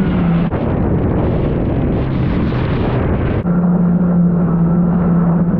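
Kawasaki Ultra 310 jet ski's supercharged four-cylinder engine running at speed, with wind buffeting and water spray hissing over the hull. About three and a half seconds in the sound turns duller while the engine note holds steady.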